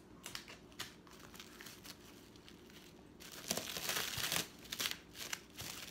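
Plastic cling wrap crinkling as it is pulled and rolled tight by hand around a log of ground pork. It is faint at first and gets louder and denser about three seconds in.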